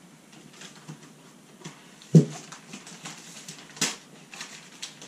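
Brown packing paper rustling and crinkling as it is unwrapped from a bracket, with scattered small ticks, a dull knock about two seconds in and a sharp click near four seconds.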